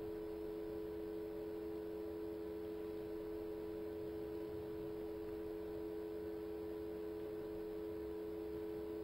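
Steady background hum of the recording: two held tones under a faint, even hiss, unchanging throughout.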